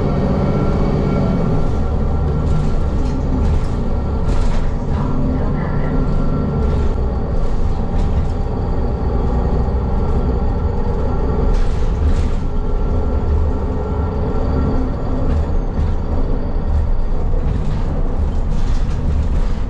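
City transit bus running, heard from inside the cabin: a steady low engine and road rumble with scattered short rattles and clicks.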